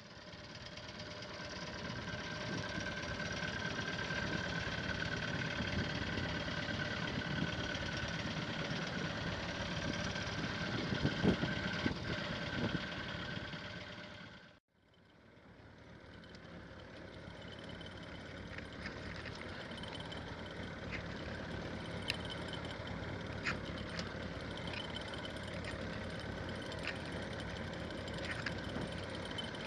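Fishing boat's engine running steadily at idle, with a few sharp clicks in the second half. The sound drops out briefly about halfway and fades back in.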